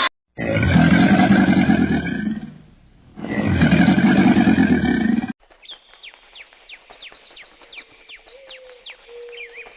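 A large animal roaring loudly twice, each roar about two seconds long. About five seconds in it cuts to a much quieter series of short, high, falling chirps, roughly two a second.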